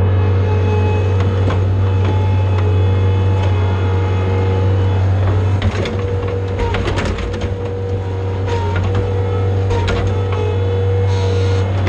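John Deere skid steer loader's diesel engine running steadily under work, a constant low drone with a steady whine above it. Knocks and rattles break in around the middle, and again near the end.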